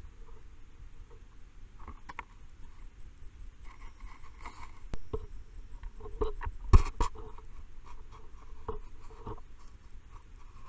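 Kittens knocking and scraping against a night camera, a scatter of sharp knocks and scratchy rubbing with twigs, the loudest knocks about two-thirds of the way in.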